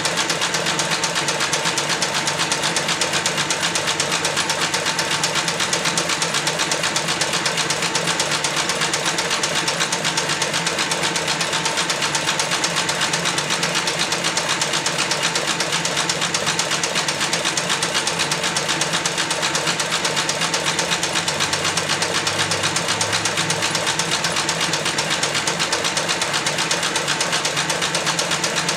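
Industrial cylinder-arm leather sewing machine stitching thick leather at high speed with a #24 needle and 207 thread, its needle and feed mechanism running in a fast, even, unbroken rhythm.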